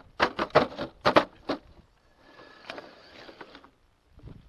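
Traxxas TRX-4 RC rock crawler tumbling down a rock pile: a quick run of about seven sharp clattering knocks against the rocks in the first second and a half. Then, for about a second, a softer gritty scraping with a faint steady whine.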